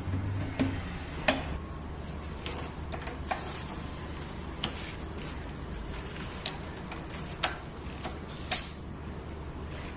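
Irregular sharp clicks and knocks, about a dozen spread unevenly, over a steady low hum; the loudest knock comes near the end.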